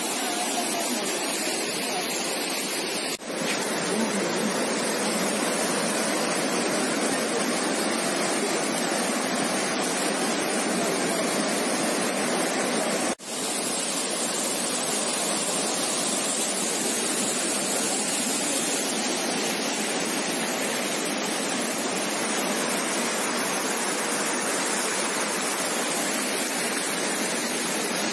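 The Meenachil River in flood: fast brown floodwater rushing with a steady, even sound. It cuts out briefly twice, about 3 and 13 seconds in.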